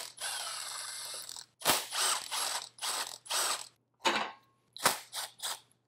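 Cordless power tool spinning out bolts on the engine's high-pressure fuel pump: one steady run of about a second and a half with a high whine, then a string of short bursts.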